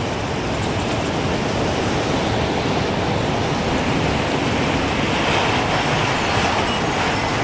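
Gusting wind rushing steadily, swelling a little stronger about five seconds in.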